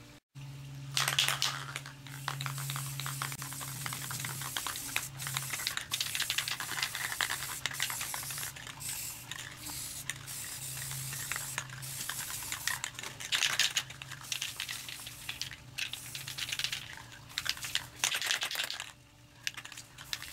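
Aerosol spray-paint can hissing in repeated bursts of one to three seconds, laying down a white base coat, with small clicks between bursts. A low steady hum runs under the first few seconds.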